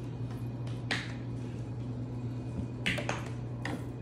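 Room tone with a steady low hum, broken by a few short taps or clicks: one about a second in and a quick cluster near the end.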